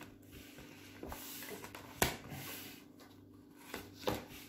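Uno cards being handled and laid down on a table: soft rubbing, a sharp tap about two seconds in and another near the end, over a faint steady hum.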